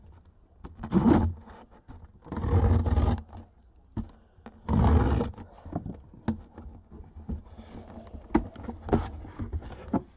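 A cardboard box being opened by hand: three loud rough tearing and scraping bursts about a second, two and a half seconds and five seconds in, then lighter crackling and clicks of cardboard and packing paper.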